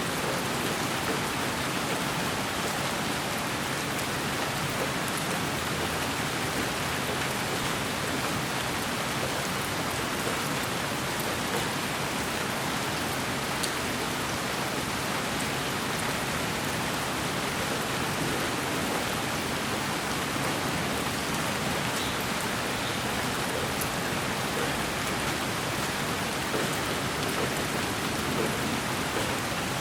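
Continuous white noise for baby sleep: an even, unbroken hiss that sounds like steady rain.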